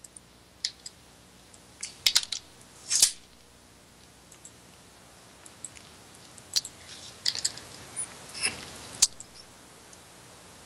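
Scattered soft clicks and brief rustling noises at irregular intervals over a quiet background, a dozen or so in all, the loudest about three seconds in and near the end.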